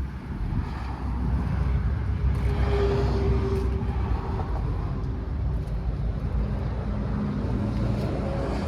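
New Holland C345 skid steer's diesel engine running with a steady low drone, and a brief higher whine about three seconds in and another shortly before the end.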